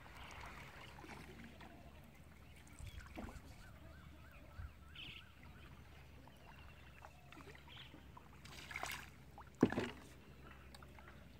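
Small boat moving slowly through flood water: faint water sloshing and scattered light knocks and splashes. A sharp knock about ten seconds in is the loudest sound.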